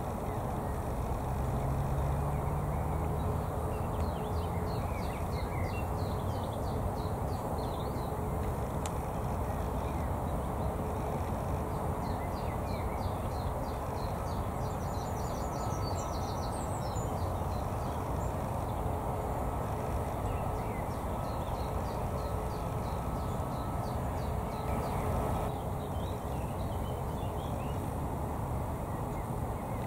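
Steady rumble of distant jet aircraft engines with a faint constant hum, and birds chirping in two short spells.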